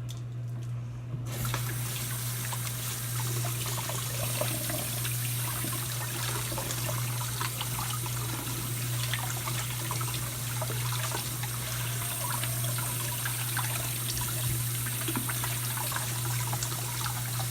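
Tap water running steadily into a sink while soapy hands are rinsed under it, the flow starting about a second in.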